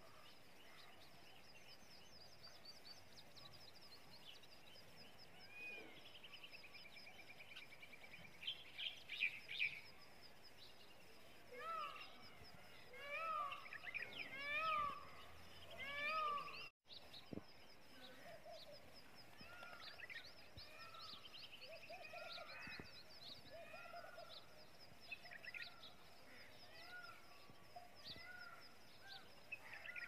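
Small birds twittering and chirping: a constant faint high chatter with many short chirped and whistled calls, and louder clusters of repeated calls from about a third to just past halfway. The sound cuts out for an instant just past the middle.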